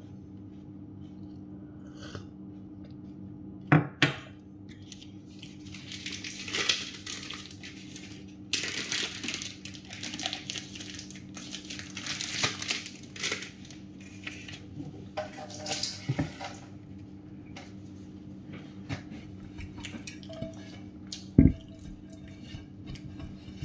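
Dishes and cutlery clinking and knocking as kitchenware is handled and put away, with a sharp knock at about 4 seconds and the loudest one near the end. Between them runs a stretch of rustling and clattering, over a low steady hum.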